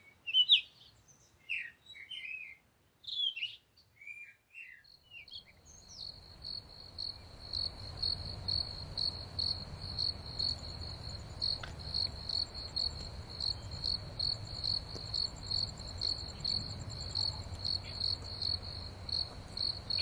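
A few short bird chirps, then, about six seconds in, crickets start chirping steadily at night in a high pulsing trill about twice a second, over a low, even background rumble.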